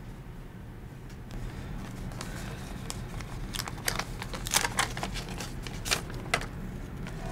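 Paper envelope being opened and the folded letter inside pulled out and handled: a run of crisp paper rustles and crinkles that starts about two seconds in and is loudest in the middle.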